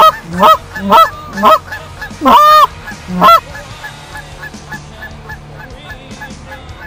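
Canada geese honking: a run of loud honks about half a second apart, one longer drawn-out honk a little past two seconds in, then fainter, quicker honking for the last few seconds.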